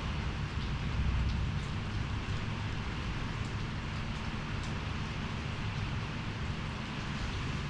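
Heavy rain falling steadily in a storm, a dense even hiss with a low rumble underneath.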